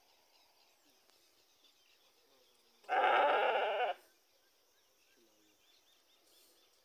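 A calf bawls once, a single call about a second long, a little under halfway through.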